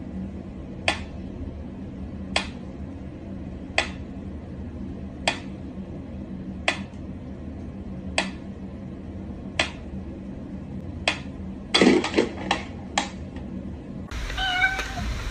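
Mechanical pendulum metronome ticking slowly and evenly, about one tick every second and a half. About twelve seconds in, a quick run of irregular clicks and knocks breaks the rhythm, and near the end a short high mewing call is heard.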